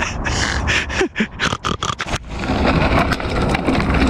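Short clicks and scrapes with a brief grunt as the mountain bike is set off. From about two seconds in come mountain bike tyres rolling over rock, with wind rushing on the microphone.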